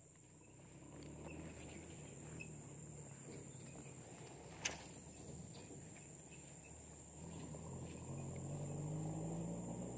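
Steady high-pitched insect chorus, with a low hum that grows louder in the last few seconds and a single sharp click about halfway through.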